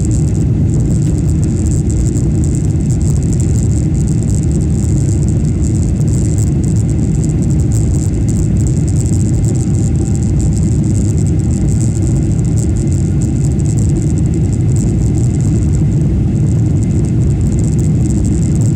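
Steady cabin roar inside an Emirates Boeing 777-300ER climbing after takeoff: the GE90 engines and rushing air make a heavy, deep noise with a thin high hiss above it.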